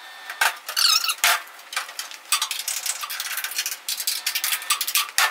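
Metal parts and hand tools clinking and knocking as they are handled: a quick run of sharp hits, with a brief metallic ringing about a second in.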